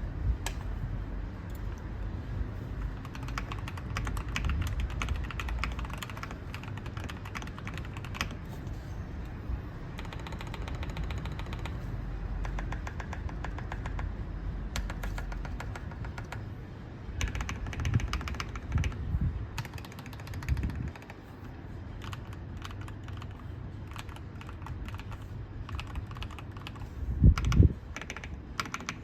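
Typing on an RK987 mechanical keyboard with lubed Akko V3 Cream Yellow linear switches: fast runs of keystroke clicks, with a couple of louder, deeper knocks near the end.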